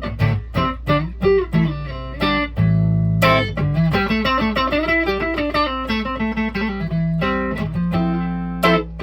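Squier Pro Tone Stratocaster electric guitar played solo: short picked notes and chords, then a quick run of single notes in the middle, over a steady low hum.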